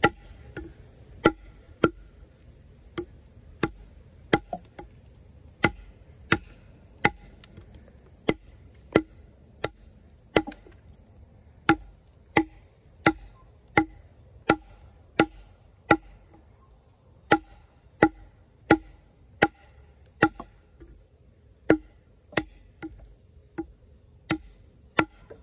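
Extrema Ratio Tuscan fixed-blade knife, N690 steel, chopping into wood: a steady run of sharp blade strikes, about one and a half a second, with short breaks twice.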